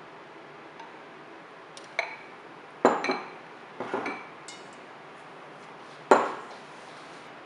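Stainless steel mixing bowl clinking and ringing as things knock against it: a handful of sharp clinks between about two and four seconds in, then a single louder clink about six seconds in.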